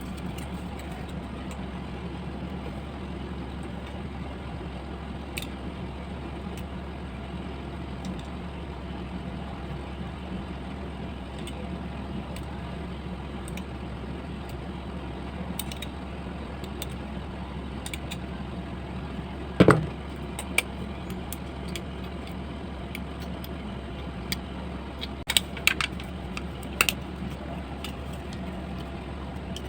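Steady low hum, with scattered light clicks, one louder knock about two-thirds of the way through, and a cluster of clicks near the end.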